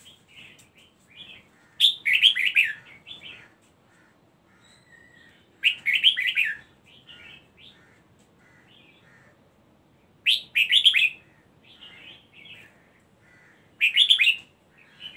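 Red-whiskered bulbul singing: four loud song phrases of about a second each, roughly every four seconds, with softer short calls in between.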